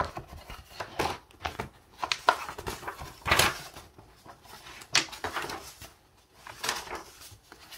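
Paper pages of a softcover workbook being turned and handled: a series of short, dry swishes and rustles, about five of them, with softer rustling in between.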